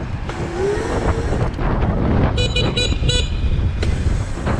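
A horn gives four quick beeps about two and a half seconds in, over steady wind rush on the microphone and road noise while riding.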